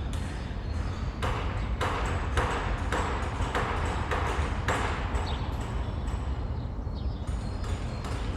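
City street ambience: a steady low rumble of traffic with a run of regular knocks, a little under two a second.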